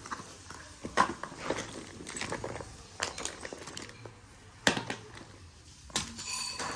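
Hands rummaging through a fabric tote bag: rustling and crinkling of the bag and its contents, with irregular sharp clicks and knocks as small items are handled and taken out.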